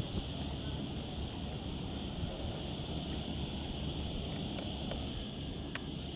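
Steady, high-pitched, unbroken drone of cicadas, over a low rumble of wind on the microphone.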